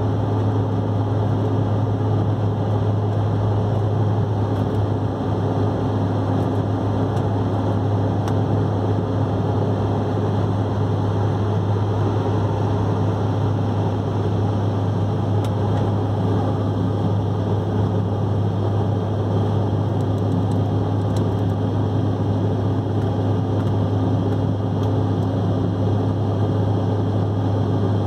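Steady cabin noise of an airliner climbing after takeoff, heard from a window seat: a constant engine drone with a strong low hum and rushing air.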